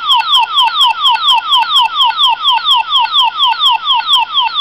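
Power Rangers Ninja Storm Thunder Ranger morpher toy playing its electronic sound effect from its small speaker, set off by its red button: a fast repeating falling chirp, about five a second.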